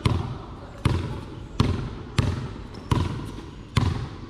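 Basketball being dribbled on a hard court floor: six sharp bounces a little under a second apart, each followed by a short echo.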